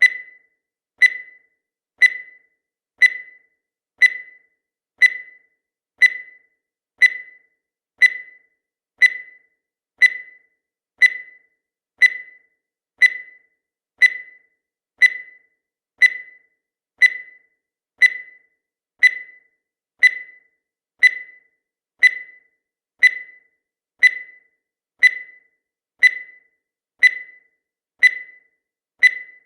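Countdown timer sound effect: a short, sharp electronic tick or beep once every second, each one dying away quickly, marking the seconds.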